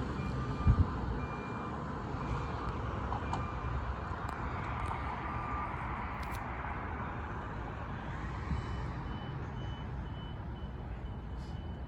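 Faint electronic beeping, repeating in short evenly spaced pulses, over a steady low outdoor rumble; a second, higher-pitched beeper pulses about twice a second in the latter part. One short thump under a second in.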